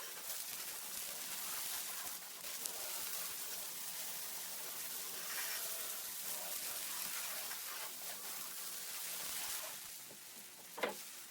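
Pressure washer spray hissing steadily against a hard surface, easing off near the end, with one sharp click shortly before the end.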